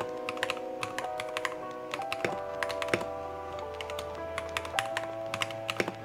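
Typing on a KPrepublic 40% custom mechanical keyboard built on a Daisy PCB with an HHKB-layout kit: quick, irregular keystroke clicks, several a second. Soft background music with held notes plays underneath, and a low bass note comes in a little past two seconds.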